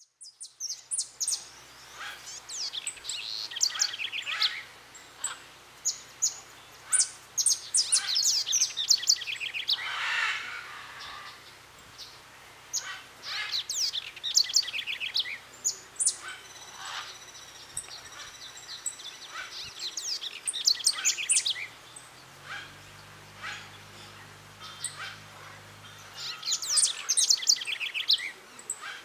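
Wild birds calling in bursts: many rapid, high chirps and a few harsher squawks, coming and going throughout.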